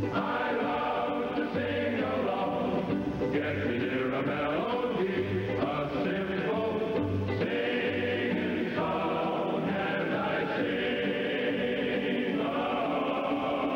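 Male chorus singing the show's opening theme over instrumental accompaniment, in the narrow, treble-less sound of an early-1960s television recording.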